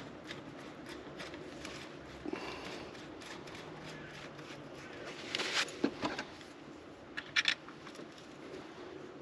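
Light clicks and scrapes of hand work as the fuel filter holder is refitted, with a few louder knocks about five to six seconds in and two sharp clicks about seven and a half seconds in.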